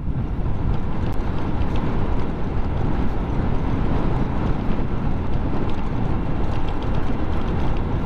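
Steady wind rush and road rumble from a Honda Click 125i scooter ridden over a jolting concrete road, with the scooter's engine running under the noise and a few faint knocks from the bumps.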